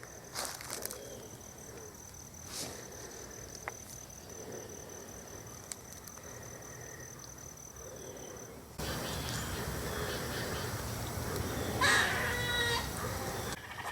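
An unidentified animal call, once near the end: a short, high cry broken into quick repeated notes.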